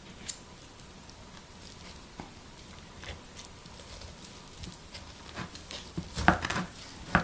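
Serrated knife sawing through a pot roast, with faint scraping and small clicks from the blade and fork on a plastic cutting mat, and a few sharper knocks near the end.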